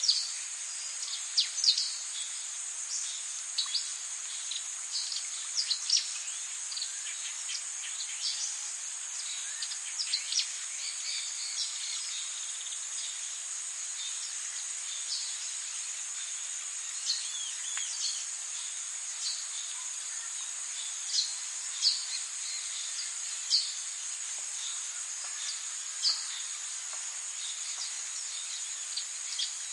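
Rainforest ambience: a steady, high-pitched insect drone with short, sharp, high chirps from birds every second or two.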